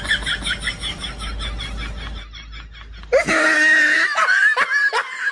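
Young women laughing hard with rapid, high-pitched giggling. A louder shriek of laughter breaks out about three seconds in.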